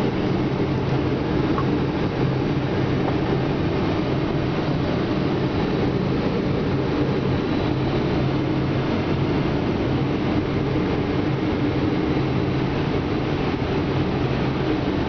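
Steady drone of an airliner's engines and rushing air heard inside the cabin during the landing approach, with a constant low hum.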